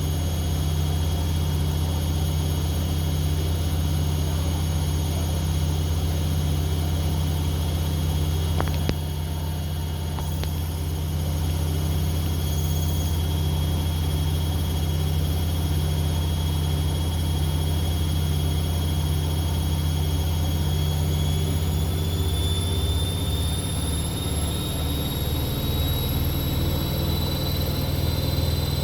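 Continental Edison washing machine running its spin cycle: a steady low motor hum with a thin high whine, which starts rising in pitch about two-thirds of the way through as the drum speeds up.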